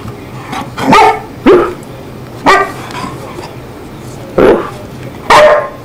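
A small dog, a Chihuahua, barking five short, sharp barks spaced unevenly across a few seconds.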